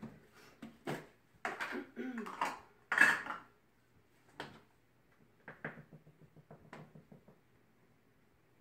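Plastic kitchen canister and measuring cup being handled: a few sharp clicks and knocks, the loudest about three seconds in, then a run of light quick ticks.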